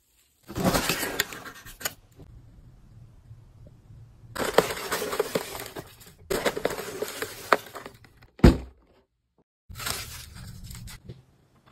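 Crinkle paper shred and packaging rustling and crackling in four bursts as a gift box is unpacked by hand, with a single thud a little past the middle.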